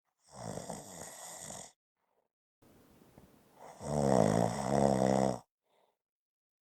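A person snoring: a rattly breath first, then after a short pause a louder, pitched snore about four seconds in that stops abruptly.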